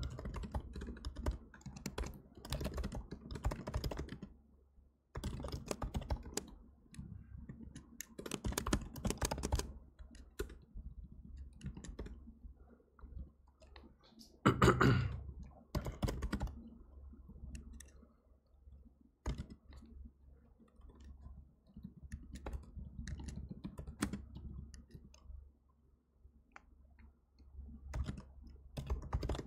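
Computer keyboard typing in bursts of keystrokes separated by short pauses, with one louder thump about halfway through.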